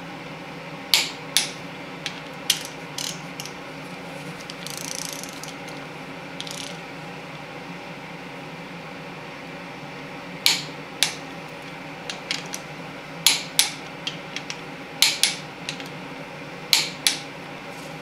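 Ratchet torque wrench clicking as the camshaft gear bolts of a Chrysler 383 big-block are tightened. Sharp clicks come every few seconds, mostly in pairs about half a second apart, with a few quicker soft ticks between them. A steady hum runs under the clicks.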